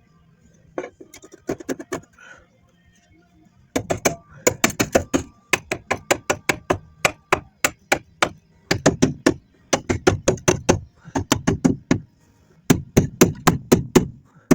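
Hammer striking a fabricated steel boxing plate to fit it onto a car's frame rail: quick runs of sharp metal blows, several a second, in bursts with short pauses between, after a few lighter knocks.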